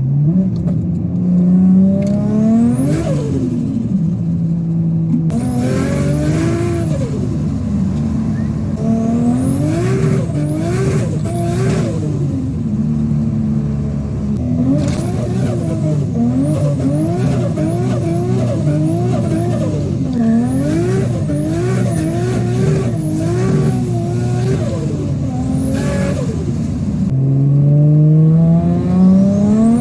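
Built Nissan RB25DET turbocharged straight-six in an R33 Skyline revving up and dropping back again and again, with a few stretches held at steady revs and a quick run of short rises and dips in the second half. Turbo flutter chatters between the rises as the throttle closes.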